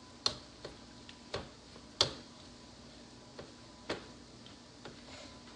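Pastry cutter knocking and clicking against a plastic mixing bowl as it cuts butter into a flour-and-oat crisp topping: several irregular taps, the loudest about two seconds in, over a faint steady hum.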